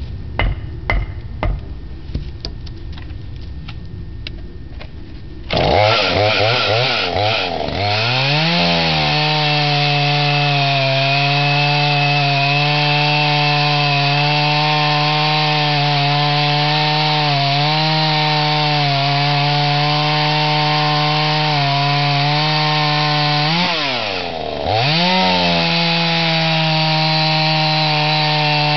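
Clicks and knocks, then a 38cc two-stroke chainsaw with a free-flowing modified muffler bursts into running about five seconds in. It revs up and down briefly, then holds a high steady pitch while cutting through solid red oak. About 24 s in the revs dip once and climb back.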